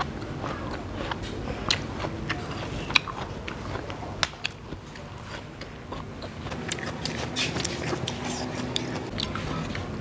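Close-miked biting and chewing of crisp water apple dipped in sambal, with irregular sharp crunchy clicks; it gets busier and wetter for a couple of seconds past the middle as fruit is broken apart by hand.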